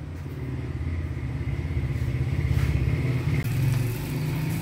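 A machine's motor running with a steady low, fast-pulsing hum that swells a little past the middle.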